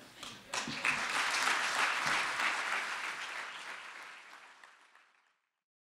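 Audience applauding, swelling briefly about a second in and then dying away until it is gone about five seconds in.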